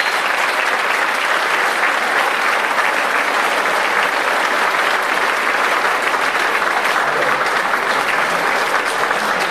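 Audience clapping in sustained, steady applause, a dense crackle of many hands.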